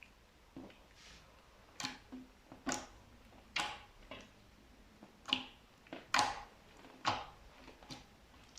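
Slime being pressed and squished by hand, giving a series of about eight short, sharp wet pops and crackles at uneven intervals.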